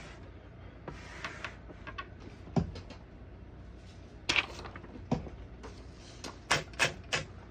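Parts of a 1916 Underwood No. 4 manual typewriter being handled: scattered sharp clicks and clacks of metal mechanism, with a quick run of three or four near the end.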